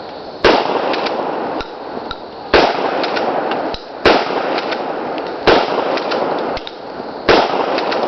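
12-gauge shotgun firing birdshot in quick succession: five sharp blasts about one and a half to two seconds apart, each trailing off for about a second.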